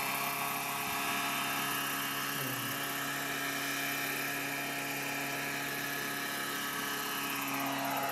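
High Eye HE 60 unmanned helicopter with its 63 cc engine and rotor running at a steady pitch, with a brief dip in pitch about two and a half seconds in.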